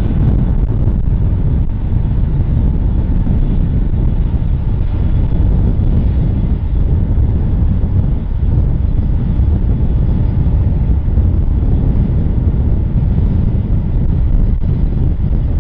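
Twin-engine Boeing 777 jet engines at takeoff thrust: a steady, heavy low rumble as the airliner rolls down the runway, lifts off and climbs away.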